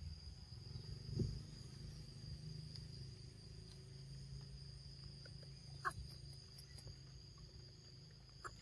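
Faint, steady, high-pitched insect drone over a low rumble, with a couple of brief knocks or clicks, the clearest about one second and six seconds in.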